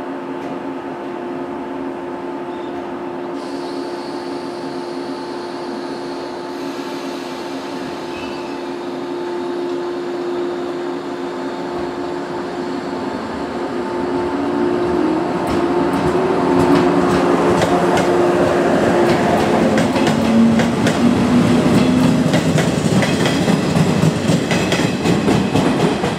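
A JNR 115-series electric multiple unit departing a station. It first stands with a steady hum from its onboard equipment, then pulls away with a rising traction-motor whine. From about halfway through, the wheels clatter over the rail joints, faster and louder as the train accelerates past.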